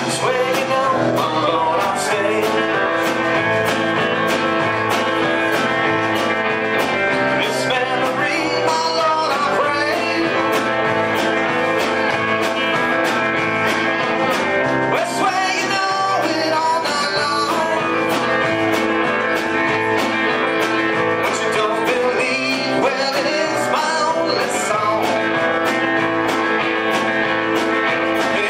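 Live band playing a spaghetti-western-style guitar number over a steady drum beat, with a gliding melodic line coming and going above it.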